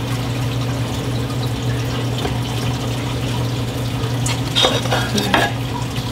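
Steady rush of water circulating in a reef aquarium's sump, with a constant low hum from its pumps. A few light clicks and knocks sound about four to five and a half seconds in as the Trident unit on top of the sump is handled.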